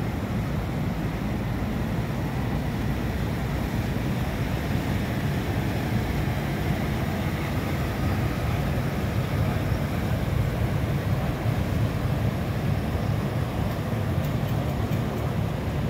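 Steady low rumble of boat engines with water churning and wind on the microphone, as large motor yachts pass close by.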